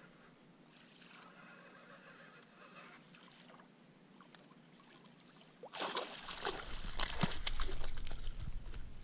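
Water sloshing and splashing with sharp clicks, starting suddenly about six seconds in after a faint quiet background.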